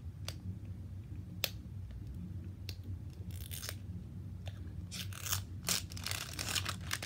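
Plastic wrap on an L.O.L. Surprise toy ball being handled and peeled: a few sharp clicks, then crinkling and tearing from about three seconds in, busiest near the end.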